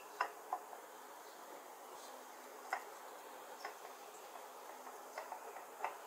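Light, sharp clicks, about six of them at uneven intervals of a fraction of a second to a few seconds, over a faint steady hiss.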